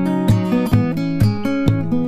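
Background music: a strummed acoustic guitar playing with a steady beat.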